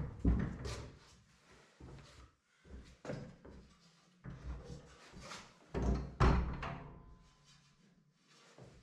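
Clanks and knocks of a cast-iron log burner being handled: its glass-fronted door swung open and its top plate shifted. The loudest clank comes a little past six seconds and leaves a short metallic ring.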